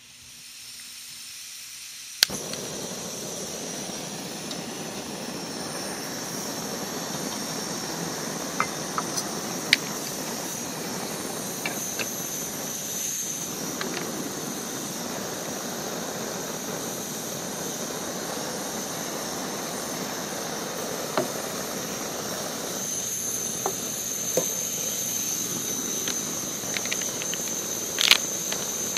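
Camp stove burner hissing steadily. It gets louder after a sharp click about two seconds in, with scattered small clicks and taps over it.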